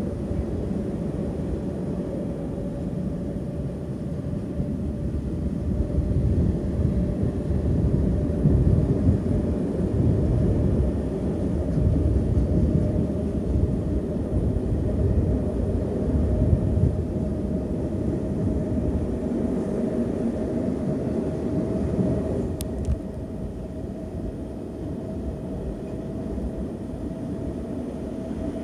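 Loaded Eaos open coal wagons of a heavy freight train rolling past: a steady rumble of wheels on rail with a thin steady whine, louder in the middle.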